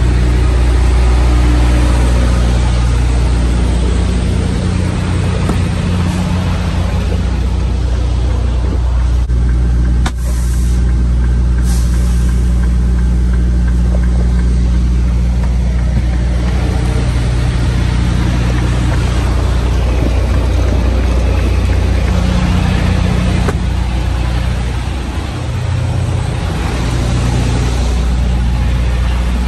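Semi truck's diesel engine running steadily, with a click and a short high hiss about ten seconds in.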